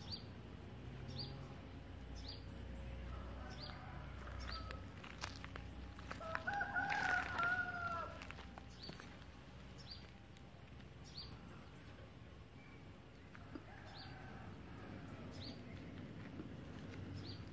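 An animal call: one drawn-out, wavering call about halfway through, with faint short high chirps repeating about once a second.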